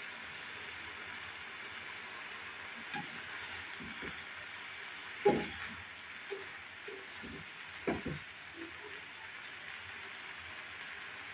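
Shrimp curry sizzling in a pan with a steady hiss. A flat spatula stirs it, knocking and scraping against the pan several times between about three and eight seconds in, loudest a little after five seconds.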